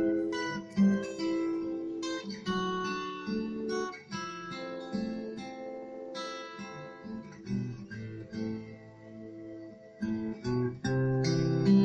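Slow fingerpicked acoustic guitar music, played back as a speaker audio test. The notes ring on one after another and grow louder again near the end.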